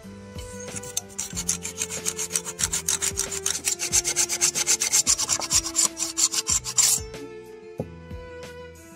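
Narrow-bladed hand saw cutting inside the throat of a dense blackwood (zi guang tan) plane body, in quick rasping strokes, several a second. The sawing starts about a second in and stops near the end, over quiet background music.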